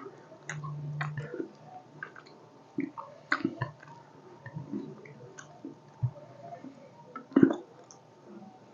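Close-miked chewing and wet mouth sounds of people eating fish curry with rice: scattered lip smacks and clicks, a brief low hum about half a second in, and one louder smack about 7.5 seconds in.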